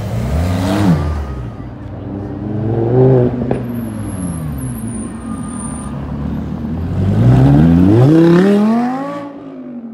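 Sports cars accelerating away one after another. The loudest is an Audi R8 passing close by, its engine note climbing as it accelerates and then dropping away near the end.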